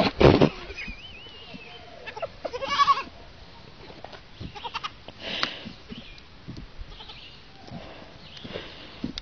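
Young goats bleating: a loud cry right at the start, another bleat about three seconds in, then fainter bleats.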